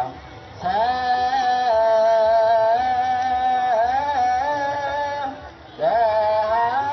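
A single voice chanting an Ethiopian Orthodox hymn: long held notes with small ornamental turns, in two phrases with a short break for breath about five seconds in.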